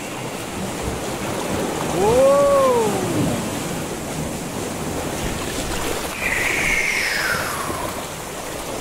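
Seawater surging and rushing in between rocks, a continuous wash of noise. About two seconds in a short call rises and falls in pitch, and later a higher one glides down.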